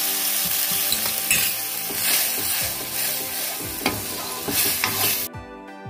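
Spice paste, potatoes and tomatoes sizzling in hot oil in an iron kadai just after a splash of water has gone in, while a steel spoon stirs and scrapes the pan. The sizzle cuts off suddenly near the end.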